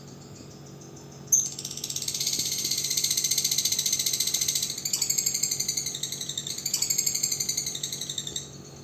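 Lovebird 'ngekek': a long, fast rattling chatter of high notes that starts abruptly about a second in, shifts pitch twice, and stops after about seven seconds.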